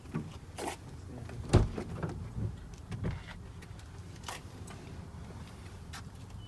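A few scattered knocks and thumps, the loudest about a second and a half in, over a steady low hum.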